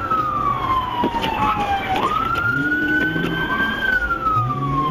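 Police car siren wailing. Its pitch sinks steadily to a low point about two seconds in, jumps back up, climbs slowly and starts falling again near the end, over the patrol car's engine and road noise.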